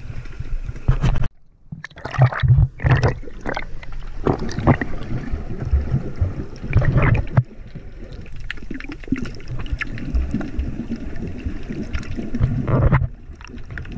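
Water sloshing and gurgling around a waterproof camera held just under the sea surface, with irregular splashes and knocks. The sound drops out briefly about a second in.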